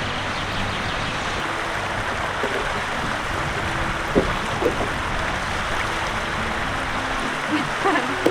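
Steady rush of fast-flowing water, an even unbroken wash.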